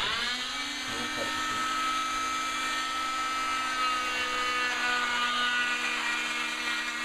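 Electric oscillating cast saw switched on, its pitch rising briefly as the motor spins up, then running with a steady whine.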